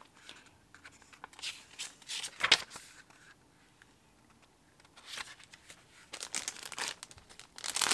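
Rustling and crinkling of stationery being handled: the pages of a paper notebook insert are flipped and cellophane sleeves are shifted. It comes in short scattered bursts, with a quiet stretch of about a second and a half in the middle.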